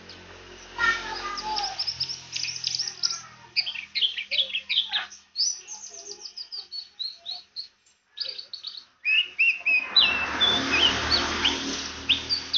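Pleci (white-eye) singing a rapid, high twittering song of quick chirps and short trills, with a brief break about eight seconds in. From about nine seconds a broad rushing noise runs under the song.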